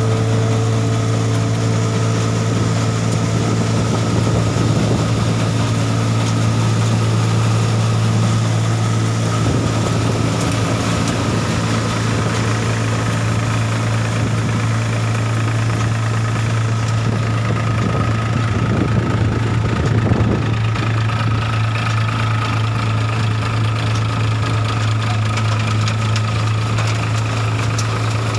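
Tractor-driven threshing machine running steadily while it threshes cumin, a deep even hum with a faint steady higher whine above it.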